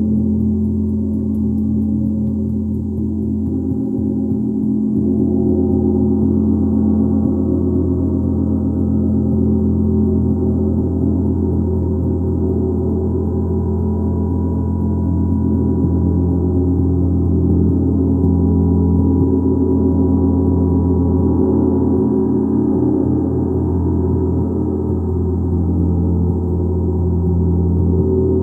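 A gong played continuously: a sustained deep wash of many overlapping tones that swells and eases gently without a break.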